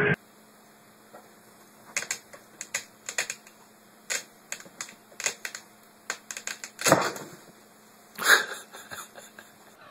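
A cat scrabbling inside a storage bin: irregular sharp clicks and scratches, with two louder knocks about seven and eight seconds in.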